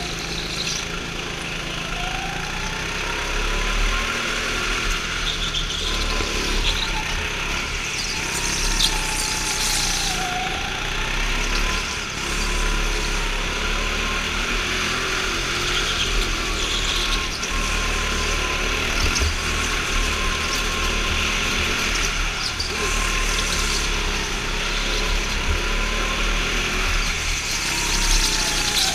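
Go-kart being driven hard around an indoor track, its engine note rising and falling over and over as the driver lifts off and accelerates through the corners.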